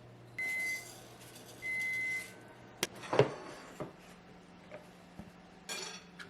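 Kitchen work sounds: two short hissing rushes, each with a thin high whistle, then a few sharp knocks and clatters, the loudest about three seconds in, and another short rush near the end.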